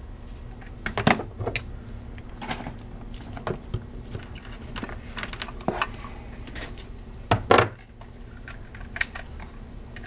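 Hand crimping tool and a shielded Cat6 RJ45 plug being handled: scattered sharp clicks and clacks, the loudest a short cluster about seven and a half seconds in.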